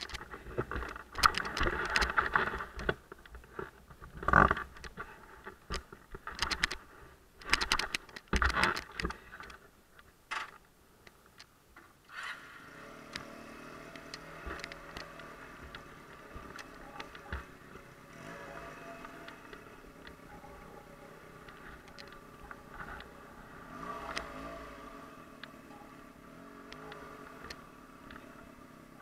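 Irregular knocks and rustles for about twelve seconds, then a motorcycle engine starts and runs steadily at low revs.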